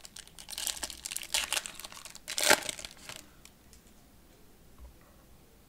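Panini Prizm Draft Picks foil card pack being crinkled and torn open, with the loudest rip about two and a half seconds in.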